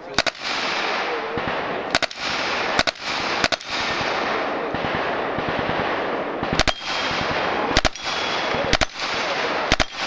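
Submachine gun fired on full auto in about eight short bursts of a few rounds each, spaced unevenly over a steady rushing background noise.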